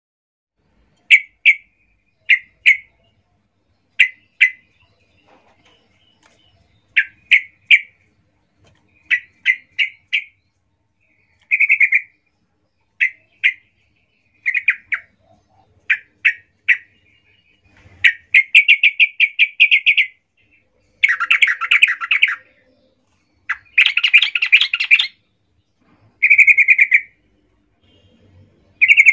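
Yellow-vented bulbul calling agitatedly, the aggressive territorial calling of a bird challenging a rival. Short sharp chirps come in pairs and triplets, then near the end longer rapid, bubbling phrases.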